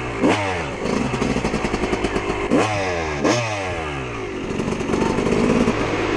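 Freestyle motocross dirt bike engine, heard from on the bike, blipped sharply four times in two quick pairs, each rev rising fast and then falling away as the throttle is rolled off, with a steadier lower running sound between and after.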